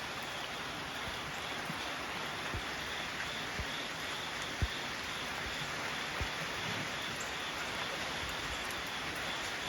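Steady rain falling, with a few scattered low taps of drops landing close by, the loudest about halfway through.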